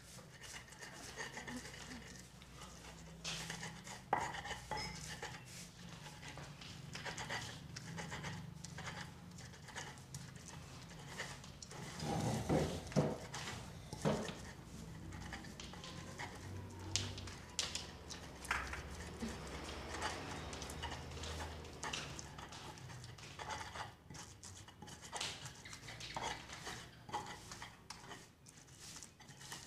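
Stone pestle grinding and knocking in a stone mortar (cobek and ulekan), crushing chillies into a wet paste: irregular scraping strokes and knocks of stone on stone, with a louder stretch about twelve seconds in.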